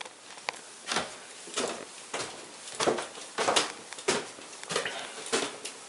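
Footsteps on a staircase, a steady run of knocks about one step every 0.6 seconds.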